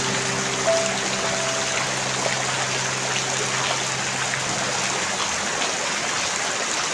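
Steady rain falling, an even hiss flecked with drops. The last soft piano notes ring out over it, one more entering about a second in, and fade away after about five seconds, leaving the rain alone.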